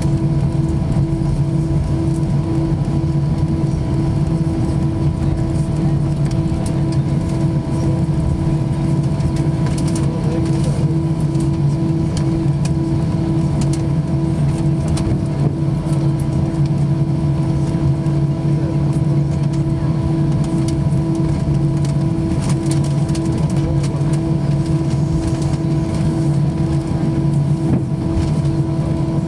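Airbus A319 cabin noise while taxiing, its CFM56 engines at idle: a steady, loud hum with a slightly wavering drone over the hiss of cabin air, and a few faint clicks and rattles about halfway through.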